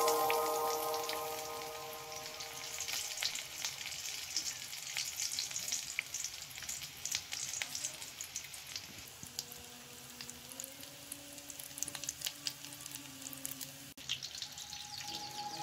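Hot oil sizzling and crackling around potato patties shallow-frying in a pan, with many small pops.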